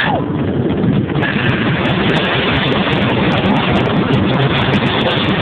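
Loud, steady rush of wind buffeting a phone's microphone on a moving amusement ride.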